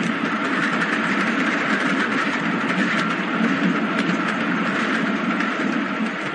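Sound effect of a passenger train running: a steady rumble and rattle of the carriage on the rails, with a few faint clicks.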